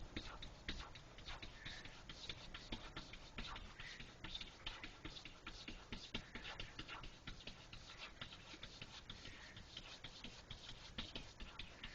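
A cat scratching and pawing, a continuous run of faint, irregular scratchy clicks.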